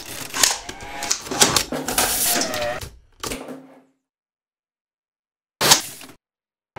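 Mechanical clicking and rattling of a medium-format film camera being handled, lasting about three seconds. After a gap of silence comes one short, sharp burst of noise.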